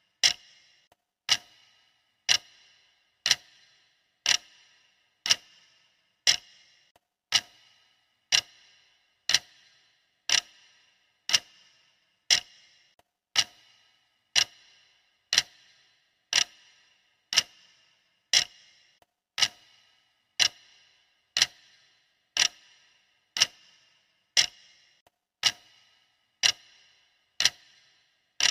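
Clock ticking steadily, one sharp tick per second, each with a short metallic ring.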